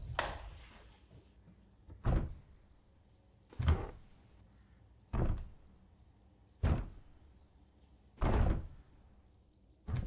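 Heavy pounding on a wooden door: loud single thuds, evenly spaced about a second and a half apart, each with a short echoing tail.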